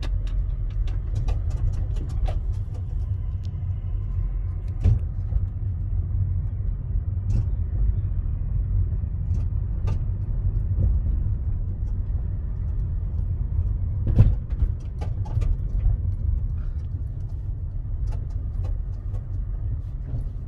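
A 2014 Honda Civic driving, heard as a steady low road rumble with knocks and clicks from the suspension scattered throughout. The loudest knocks come about five seconds in and about fourteen seconds in.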